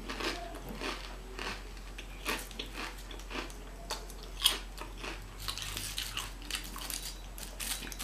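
Close-up chewing of crunchy chips: irregular crunches, a couple a second, the loudest about four and a half seconds in.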